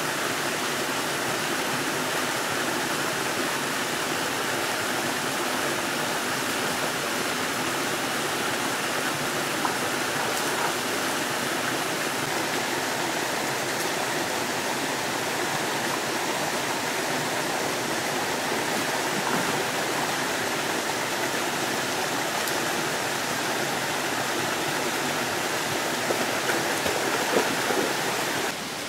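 Steady rushing of a spring-fed mountain stream spilling over a small cascade. A few louder splashes near the end come from a golden retriever wading out of the pool onto the bank.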